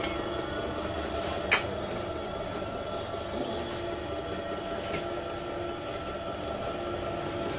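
Small electric screw oil press running while it presses almonds into oil and cake: a steady mechanical hum with a few held tones. One sharp click comes about a second and a half in.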